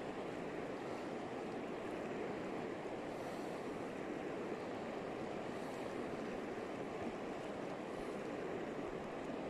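Steady rush of a river's flowing water, an even noise without breaks.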